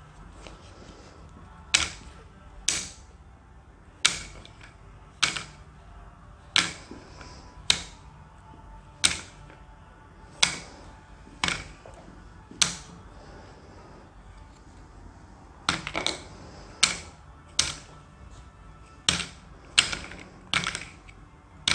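Sharp clicks of small board-game pieces being set down on a table one at a time, about one a second, with a pause of a few seconds midway.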